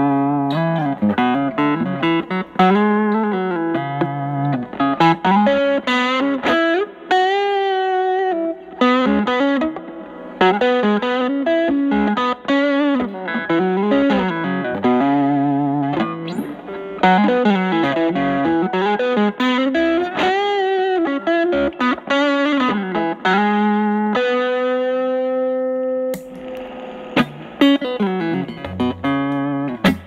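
Overdriven electric guitar lead: a Telecaster through an Ibanez Tube Screamer Mini stacked into the driven channel of a Fender Studio Reverb combo with an 8-inch Celestion speaker. It plays improvised single-note lines with string bends and vibrato. Past the middle it holds a long note, then moves into quicker picking.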